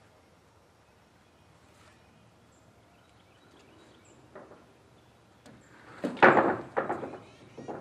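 Quiet at first, then a single knock about halfway through. Near the end comes a cluster of loud thumps and scraping knocks.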